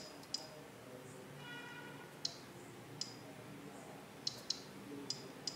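Quiet, sharp key-press clicks of typing on a Sony Tablet S's on-screen keyboard, about seven taps at irregular intervals.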